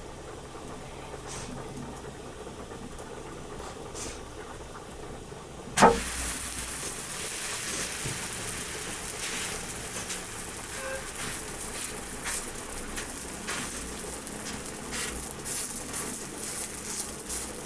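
Cooking sizzle with scattered crackles. A sharp knock comes about six seconds in, and the sizzling is louder after it.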